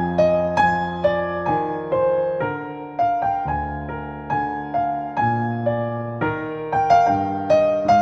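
Background music: solo piano playing an allemande, a flowing melody of struck notes over a moving bass line.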